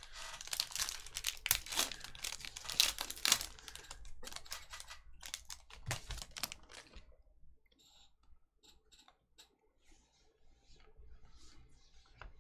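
Foil Panini Select soccer card pack being torn open and crinkled in the hands, a dense crackling for about seven seconds. It then drops to faint ticks and rustles as the cards are slid out of the wrapper.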